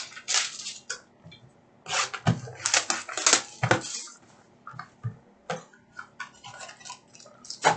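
Cardboard card box and its pack being handled: irregular rustling and scraping with a few light knocks as a trading card box lid is opened and the pack pulled out, busiest about two to four seconds in.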